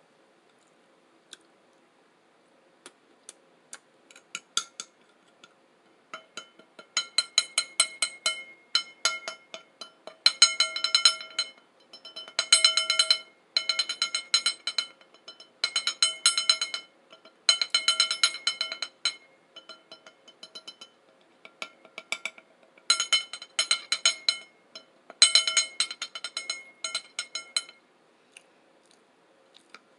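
Metal cutlery clinking and scraping against a dish in quick runs of one to two seconds, each contact ringing at the same few pitches, with a few isolated clicks before the runs begin.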